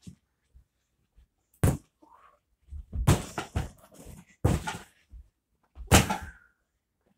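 Hard thumps of punches and slaps landing on a free-standing punching bag, about five blows spaced irregularly, the loudest about six seconds in.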